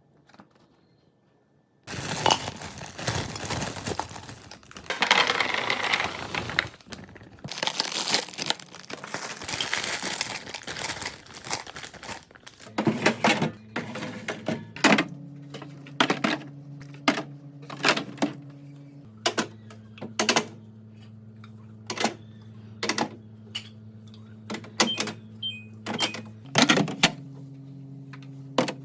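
Plastic packaging crinkling and rustling for several seconds, then a run of sharp clacks about once a second as containers and items are set down, over a low steady hum that changes pitch at a few sudden cuts.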